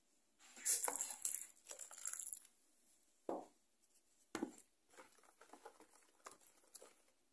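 Wooden spoon stirring wet fine bulgur and semolina in a plastic bowl. A brief scraping rustle comes about a second in, then a couple of soft knocks and light scattered clicks against the bowl.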